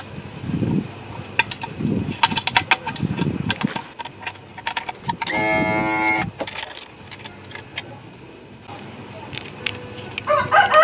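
Metal clinks and dull knocks as the gearcase of a 60 hp outboard is knocked loose and worked off its housing. A loud steady tone lasts about a second, about five seconds in, and chickens cluck near the end.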